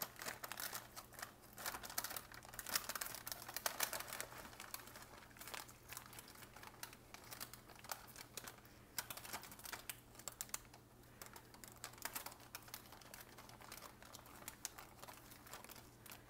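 Plastic and foil snack packets crinkling and crackling in the hands as a cheese-sauce packet is handled, in a run of irregular crackles that is busiest in the first few seconds.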